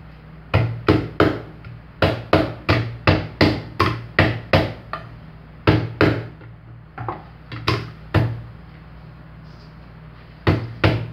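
Garlic being pounded with a pestle in a cooking pot: a rapid run of sharp knocks, about three a second, breaking off briefly in the middle and for about two seconds near the end.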